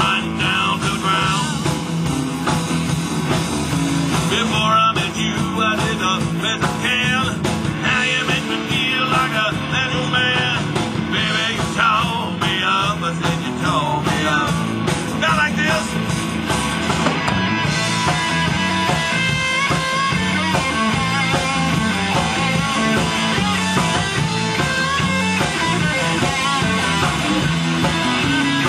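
Live rock band playing a song: electric guitars and a drum kit through stage amplifiers.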